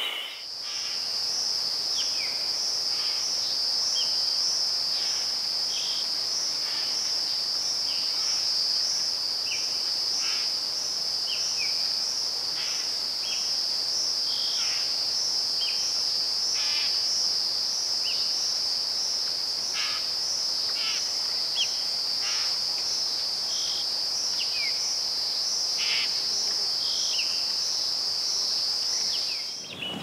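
A continuous high-pitched insect trill with a fast, even pulse, with short bird chirps scattered through it, several of them falling in pitch.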